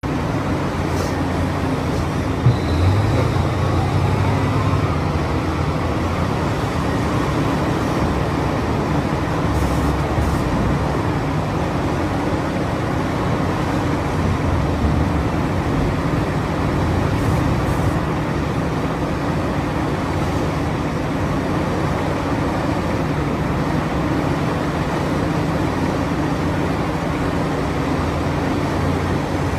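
Excavator's diesel engine running steadily under work, with a single sharp knock about two and a half seconds in.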